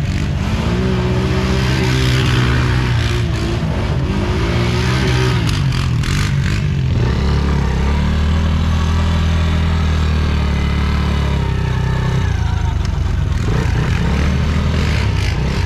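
Yamaha Raptor 90 quad's small single-cylinder four-stroke engine revving up and easing off again and again as it is ridden, with a stretch of steady running in the middle of the clip before the revs drop and climb once more near the end.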